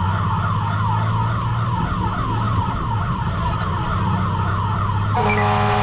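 Fire engine siren in a fast yelp, about four rising-and-falling sweeps a second, over the truck's engine running underneath; near the end it switches to a steady horn.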